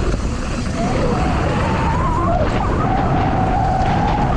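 Helicopter flying close and banking: loud rotor and engine noise, with a wavering whine that settles into a steady tone about three seconds in.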